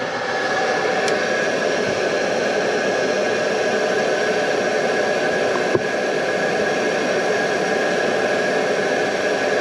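Water running through a bathtub faucet valve and its copper pipes inside the wall: a steady rushing hiss that swells about half a second in, with a faint steady whine over it. There is a single click near the middle.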